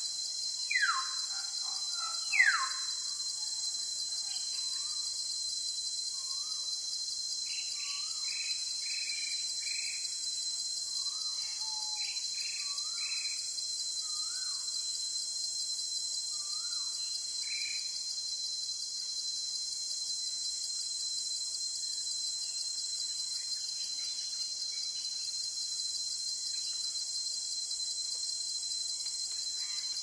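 Tropical forest ambience: a steady high-pitched insect drone with birds calling over it. Two loud downward-sweeping calls come about one and two and a half seconds in, followed by a scatter of short chirps that thin out in the second half.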